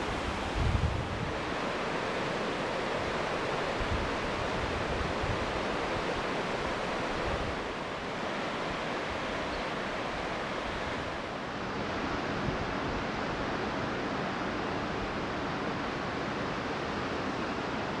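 Steady rush of a fast river running over rapids, with a brief low buffet of wind on the microphone about a second in.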